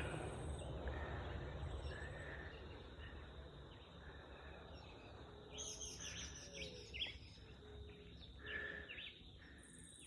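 Wild birds calling and chirping. A short call repeats every couple of seconds, and a flurry of chirps comes a little past halfway, over a low rumble that fades after the first few seconds.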